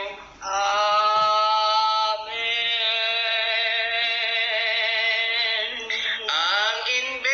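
A voice chanting in long held notes: a brief break about half a second in, then one note held for about three seconds, and near the end the pitch slides and wavers.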